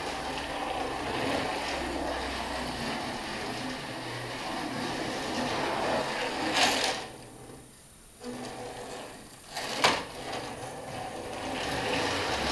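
A radio-controlled Magracing model Ferrari runs on a tabletop track, its small electric motor and wheels making a steady rumble. A sharp knock comes about six and a half seconds in, the running drops away for about a second, a click follows near ten seconds, and then the steady running resumes.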